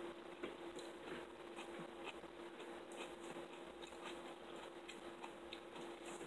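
Faint, scattered small clicks and taps of eating close to the microphone, over a steady faint hum.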